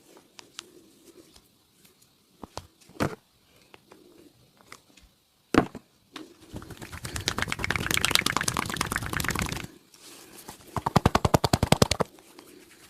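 Rapid hand percussion massage on the upper body: two fast runs of slaps and chops, the first about three seconds long and dense, the second about a second long with evenly spaced strikes. A couple of single sharp knocks come before them.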